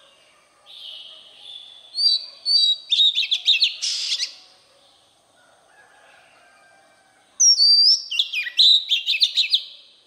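Oriental magpie-robin singing: two phrases of clear whistles and quick, varied notes. The first opens on a long held whistle and the second, a few seconds later, on a high falling note.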